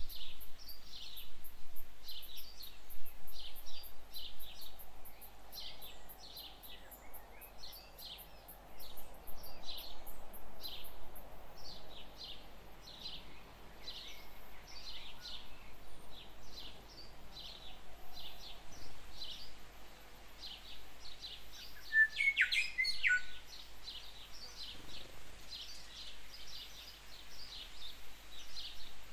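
Bird chirping from the surrounding bush: short high chirps repeating about twice a second, with one brief louder bird call about three quarters of the way through.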